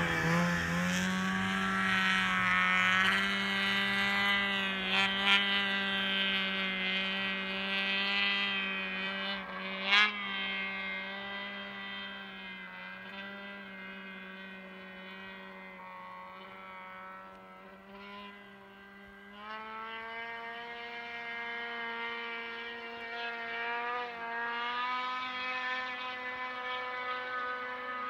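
Distant 850 two-stroke snowmobile engine held at high revs while climbing a slope: a steady, unwavering engine pitch that slowly fades away, then grows louder again about twenty seconds in. A single sharp click about ten seconds in.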